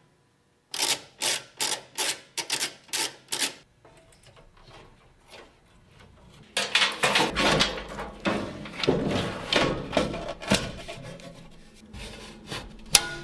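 Computer hardware being handled and fitted into a steel case: a quick run of sharp, evenly spaced clicks, then scraping and rubbing of metal and plastic parts with knocks. Near the end a 3.5-inch hard drive is slid into its drive cage with clicks and one sharp snap.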